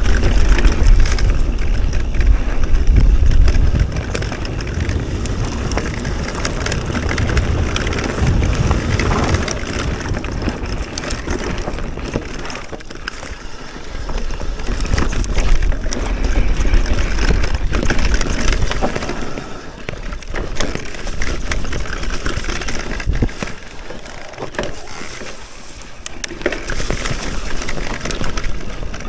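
Enduro e-mountain bike riding down a rough trail: tyres running over the trail surface and the bike rattling with many sharp knocks. Wind buffets the microphone, heaviest in the first few seconds and again around the middle.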